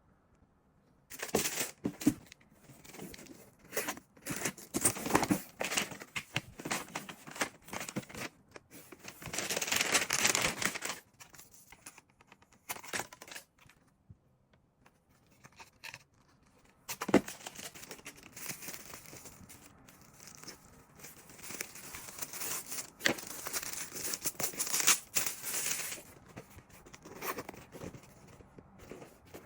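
Packaging being opened and handled: paper and plastic rustling, crinkling and tearing, with sharp clicks and knocks. A longer tearing or rustling stretch comes about ten seconds in, then a brief pause before the handling starts again.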